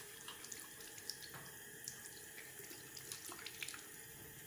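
Bathroom tap running a thin stream into a ceramic washbasin, with small scattered splashes as hands are wetted and rub a bar of soap under the water.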